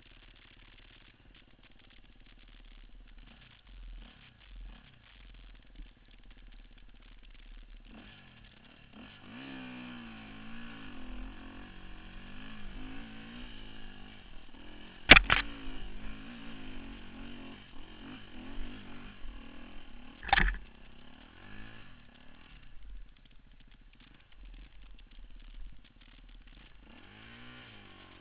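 Enduro dirt bike engine running low at first, then revving up and down from about eight seconds in as the bike rides through the woods. Two sharp knocks, the loudest sounds, come about five seconds apart in the middle.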